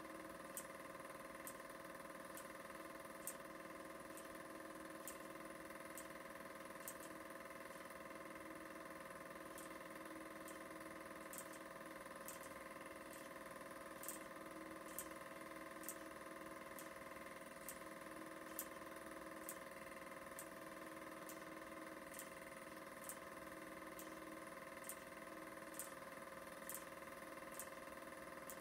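Super 8 film projector running: a quiet, steady mechanical hum with a sharp tick about once a second.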